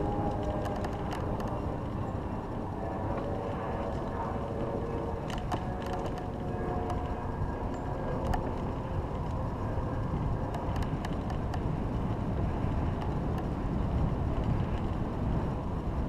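Steady wind noise on the microphone and tyre rumble from a bicycle rolling along an asphalt trail, with a few sharp clicks and rattles from the bike.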